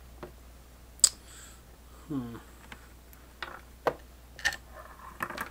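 A cable connector being pulled out of a small plastic electronics enclosure and handled: one sharp click about a second in, then a few lighter clicks and knocks. Short hummed vocal sounds come in between.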